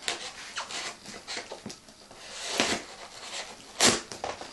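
A cardboard parcel being opened by hand: cardboard and packing rubbing and scraping, with two louder scrapes about two and a half and four seconds in.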